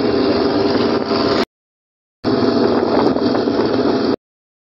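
Engine hum and road noise of a moving vehicle, heard from inside as it drives along. The sound cuts out abruptly to dead silence twice.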